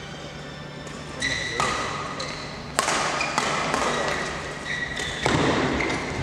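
Badminton doubles rally: rackets strike the shuttlecock in sharp cracks about every second from about a second in, with court shoes squeaking on the floor between shots. A heavier footfall thud comes about five seconds in.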